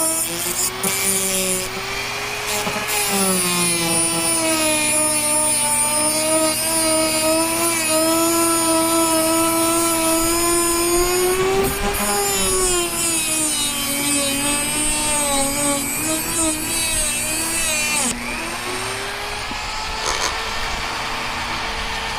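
Dremel rotary tool with an abrasive cut-off disc grinding through a rusted screw head, its high motor whine sagging and recovering in pitch as it loads up. About three-quarters of the way through, the grinding hiss drops away while the motor keeps whining, as the cut-off disc breaks.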